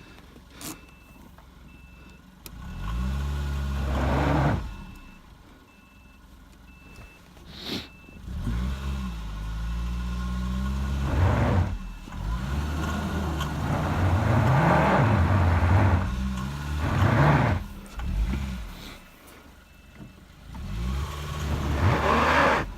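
A car engine revving hard in repeated surges as the driver tries to drive the car out of deep snow where it is stuck. Between the revs the car's reversing beeper pulses in a steady high beep, so the car is in reverse.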